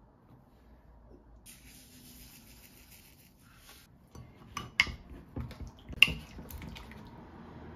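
A soft hiss as a plastic squeeze bottle of honey is squeezed, then a wooden spoon stirring a thick sauce in a glass measuring cup, clicking and knocking against the glass, with two sharp knocks about five and six seconds in.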